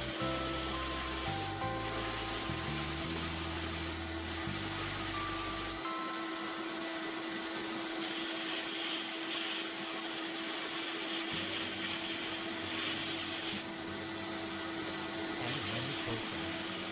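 Rust being stripped from the toy plane's steel parts by abrasive work: a steady rasping hiss that breaks off briefly several times. Soft background music plays under it early on.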